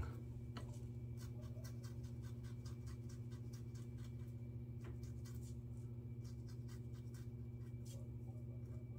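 Yates safety razor with an H plate cutting through lathered beard stubble: rapid, short, faint scratchy strokes of the blade, over a low steady hum.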